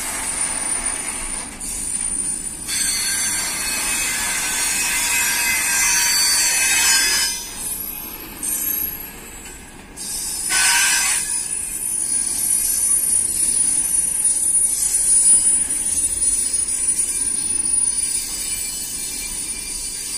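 Container freight train's flatcars rolling past on the rails, wheels running on the track with a thin, high-pitched squeal that comes and goes. The sound swells and dips as the cars pass, with a brief louder squeal about halfway through.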